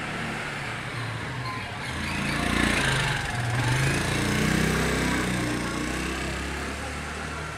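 Small engine running close by, rising to its loudest in the middle and fading away near the end, over the general noise of a busy street.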